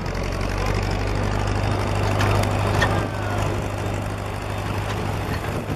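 Tractor engine running steadily with a low drone, heard from the ride being towed behind it, over the rumble of wheels on a rough farm track.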